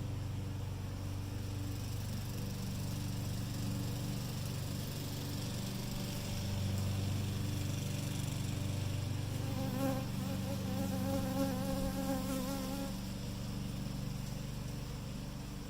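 Honeybees buzzing around an open hive during an inspection. From about ten seconds in, one bee flies close by for a few seconds, a louder wavering buzz, over a steady low hum.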